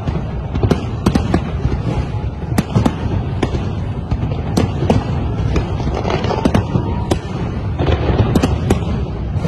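Aerial fireworks bursting: a continuous low din of exploding shells with many sharp bangs at irregular intervals, often several a second.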